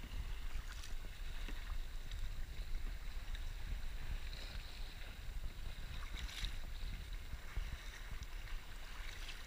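Sea water lapping and splashing at a kayak, with a few brief louder splashes, over a steady low wind rumble on the action camera's microphone.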